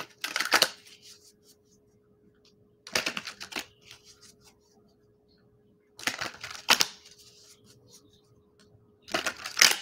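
A tarot deck being shuffled by hand, with four short bursts of card clicks and slaps about three seconds apart.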